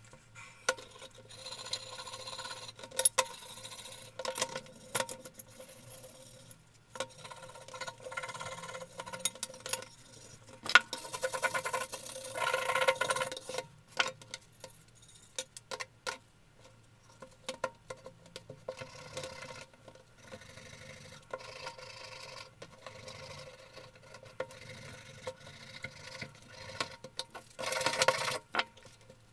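Rusty cast-iron breast drill parts being scrubbed by hand with a wire brush over a plastic tub: irregular bursts of scratchy brushing, heaviest about halfway through and again near the end. Sharp knocks come now and then as the parts are handled and set against the tub.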